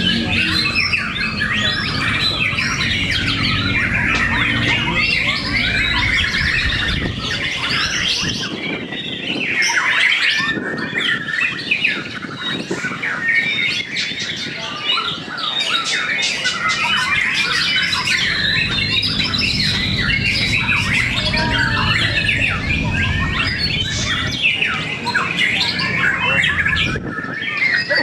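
Many caged white-rumped shamas (murai batu) singing against one another in a contest: a dense, continuous tangle of overlapping whistled song. A low hum runs beneath it for the first eight seconds and again near the end.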